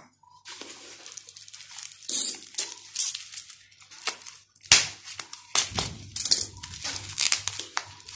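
Packaging crinkling and rustling in quick irregular bursts as it is handled, with short clicks and knocks; the sharpest sound comes about five seconds in.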